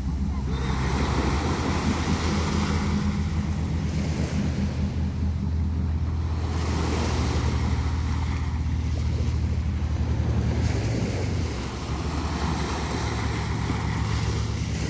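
Small waves washing up onto a sand beach in surges every few seconds, over the steady low drone of a boat engine running offshore. The drone shifts in pitch a couple of times. Wind buffets the microphone.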